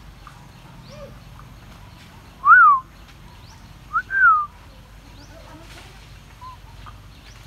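Macaque giving two loud, whistle-like coo calls, each rising then falling in pitch; the second comes a second and a half after the first, as a short note followed by a longer one. Faint short chirps sound in between.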